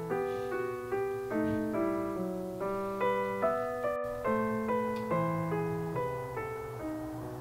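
Background piano music: a gently paced melody of notes struck about twice a second, each fading away.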